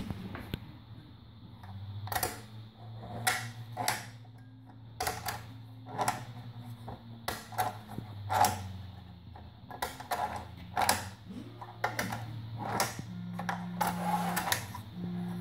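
Sharp clicks and knocks, roughly one a second, from a 3D-printed plastic spring catch and angle track as a wooden saw sled is swung along the curved guide, the catch dropping into its 5° notches.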